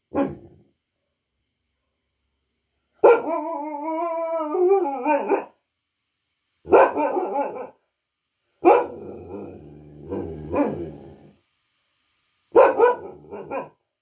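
Local-breed dog barking and vocalising: a short bark, then a long call whose pitch wavers for about two and a half seconds, followed by three shorter bouts of barks.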